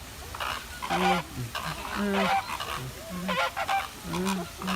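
A flock of flamingos honking, with short nasal calls overlapping one after another.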